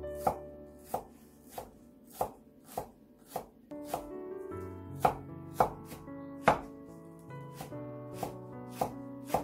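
Cleaver chopping garlic and green onion on a wooden cutting board, with a sharp, regular chop about every half second or a little more. Background music plays underneath.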